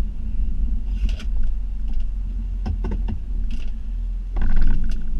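Snow plow truck's engine running steadily, with scattered clicks and creaks and a louder noisy burst about four and a half seconds in as the plow works the snow.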